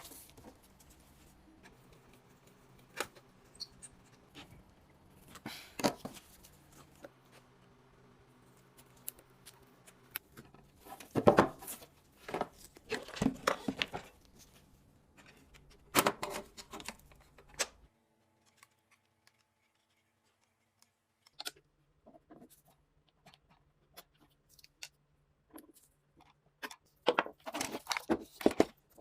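Scattered clicks, knocks and rustling of hand work on an old harmonium, in small bunches with gaps between, over a faint low steady hum that drops out for a few seconds past the middle.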